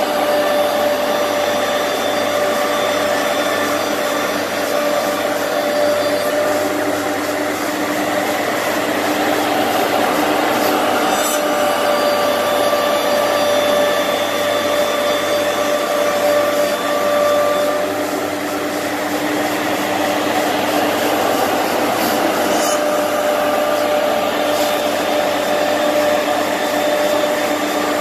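CNC router spindle running with a gang of three saw blades, cutting parallel grooves into a panel. It makes a steady whine over a loud rushing noise.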